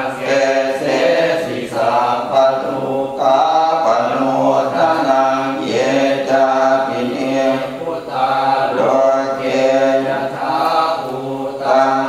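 Thai Buddhist prayer chanting (suat mon): voices reciting together in a steady cadence, phrase after phrase with short breaks about every two seconds.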